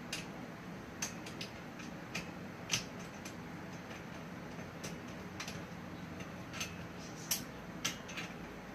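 Irregular light clicks and taps of BMX bike parts and tools being handled, about a dozen spread unevenly, over a steady low hum.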